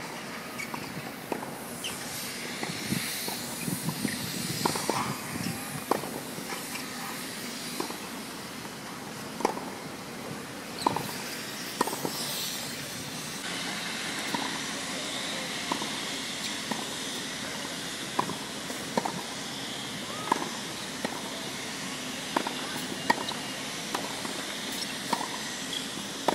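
Tennis ball being hit back and forth in a baseline rally, racquets including a Wilson K Blade Tour 93 strung with Solinco Tour Bite, with the ball bouncing on a hard court: sharp pops about every second or so over a steady background hiss.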